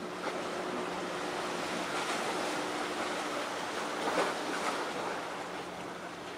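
Steady rushing noise of the sea shore, with a faint steady low hum underneath.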